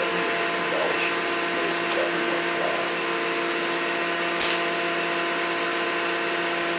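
Tinius Olsen universal testing machine running steadily, a hum with several fixed tones, as it pulls a metal test bar past its peak load. One sharp click about four and a half seconds in.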